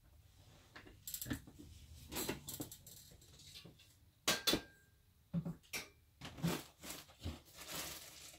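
Hands rummaging among and handling small craft supplies: scattered clicks, light knocks and rustling, with two sharp clicks close together about four and a half seconds in.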